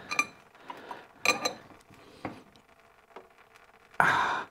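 Open-end spanner working the nut on a tractor's hydraulic steering cylinder: several sharp metal clinks with a short ring, spread out over the seconds. A short, loud exhale of effort comes near the end.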